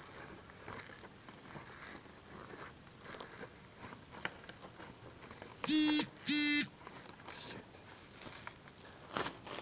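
A mobile phone vibrating against a hard surface: two short buzzes at a steady pitch in quick succession, a little past the middle. Around them are soft rustling of clothing and a knock near the end.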